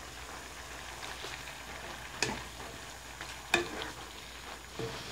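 Chicken livers and gizzards simmering in adobo sauce in a wok with a faint, steady sizzle, while a wooden spatula stirs and knocks against the pan three times.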